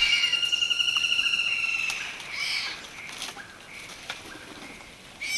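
Newborn tiger cub crying its contact call: one long, high, slightly wavering cry lasting about two seconds, then a few fainter calls and ticks.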